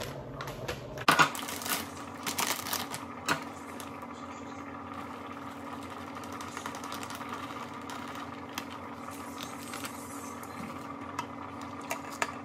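Plastic bag of shredded cheese crinkling and cheese being shaken into a glass measuring cup, with a few light clicks, over a steady hum holding a low and a mid tone that starts about a second in.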